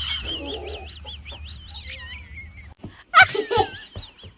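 An animal's high call, wavering up and down in pitch for about two seconds, then short voice-like sounds near the end.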